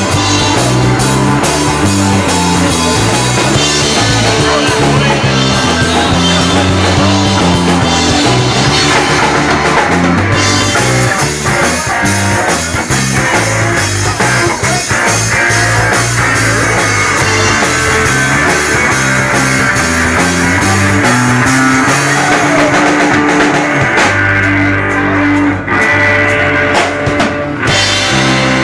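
Loud rock music with a drum kit and guitars playing.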